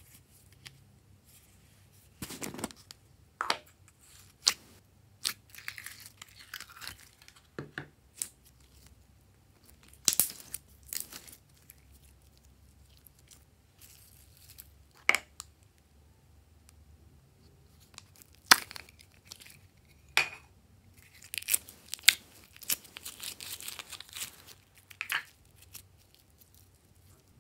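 Slime and plastic containers being handled: scattered sharp pops and clicks with stretches of crinkly, crackling noise as glitter slime is taken out of a plastic capsule and pressed into a tray, then clear slime is stretched and poured.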